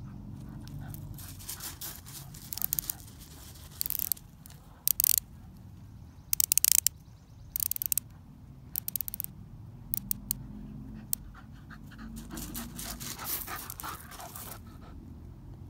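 The unidirectional rotating bezel of a TAG Heuer 2000 Professional dive watch being turned, ratcheting in short spurts of sharp clicks, loudest around six to eight seconds in. Near the end a dog pants close by.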